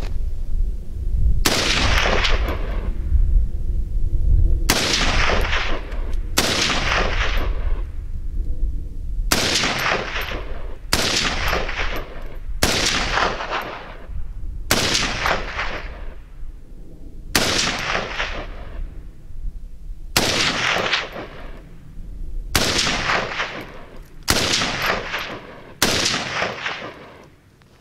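Zastava M70AB2 7.62×39 mm assault rifle firing about fourteen shots, spaced one to three seconds apart. Each shot trails off in a long echo.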